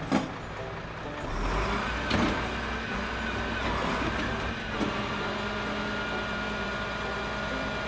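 Truck engine sound running steadily with a low rumble, a wavering whine in the first half and a few sharp clicks.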